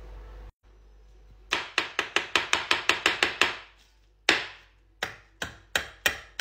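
Kitchen knife chopping basil leaves directly on a countertop: a fast run of about a dozen sharp chops, a pause and a single chop, then slower chops about three a second.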